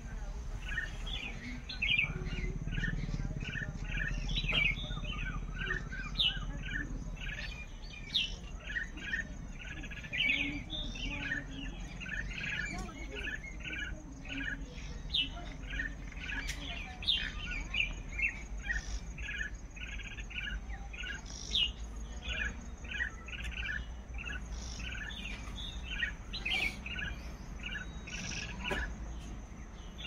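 A group of common (Indian) mynas calling: many short chirps and whistles, one after another and overlapping, over a thin steady high whine.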